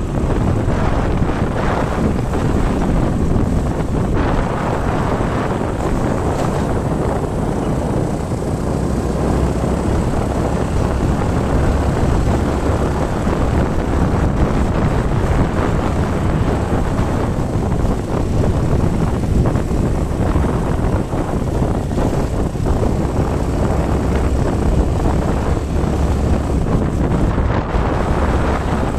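Wind buffeting the microphone over steady road and engine noise from a vehicle moving along the road.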